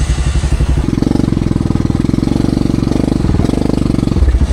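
ATV engine revving hard under load, stepping up to higher revs about a second in and easing off briefly near the end, as the quad strains against a tree stump.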